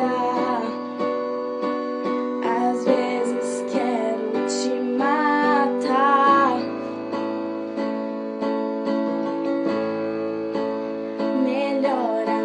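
Music from a pop song: a guitar and keyboard accompaniment. A moving melody line runs for the first half, then the music settles into held chords.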